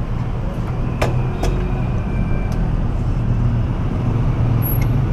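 Motor vehicle engine running steadily, a low hum, with two sharp clicks about a second and a second and a half in.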